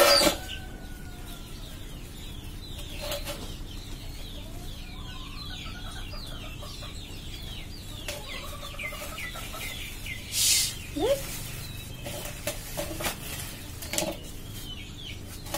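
Chickens clucking and peeping, a steady run of short falling calls, with a few rustles and knocks as a plastic bag of small fish is emptied into a steel bowl, the loudest right at the start.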